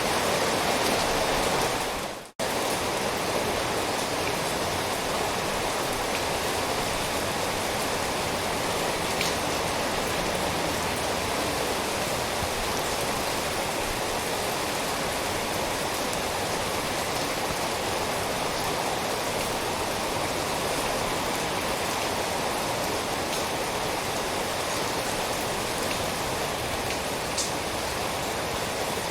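Steady rain falling, a dense even hiss with the odd single drop ticking out of it. About two seconds in the sound fades away to almost nothing and then cuts straight back in.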